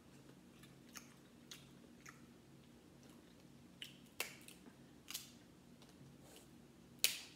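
Boiled seafood shells being cracked and picked apart with the fingers, with chewing: scattered sharp cracks and clicks, the loudest crack near the end.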